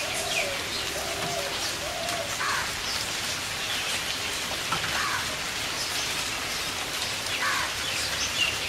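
Steady rain falling, with a small bird's short chirps repeating at irregular intervals over it.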